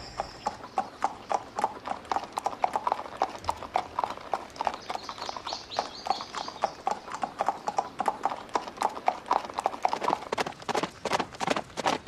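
Hooves of two horses clip-clopping steadily on a gravel path, a quick, even run of sharp knocks.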